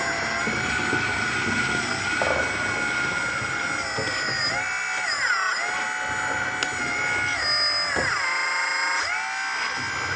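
Small electric motor of a model hydraulic pump whining steadily, its pitch sagging and recovering twice, about four and a half and eight seconds in, as the pump comes under load.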